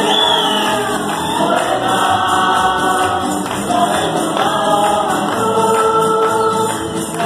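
A tuna, a Spanish-style student minstrel group, singing a pasodoble in full chorus to strummed bandurrias and guitars.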